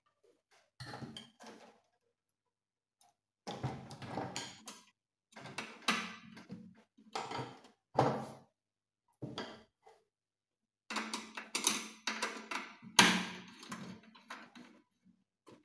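Hand tools clattering and knocking on a wooden table, then a screwdriver working the terminal screw of a miniature circuit breaker in a metal distribution box, in short irregular bursts with pauses between; the busiest, loudest handling comes near the end.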